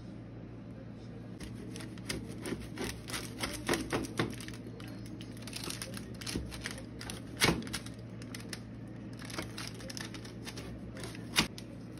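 Pizza cutter wheel rolling through baked puff pastry on parchment paper, making a run of crisp crackles and crunches as the flaky crust breaks. It starts about a second and a half in, with the sharpest snaps near the middle and near the end.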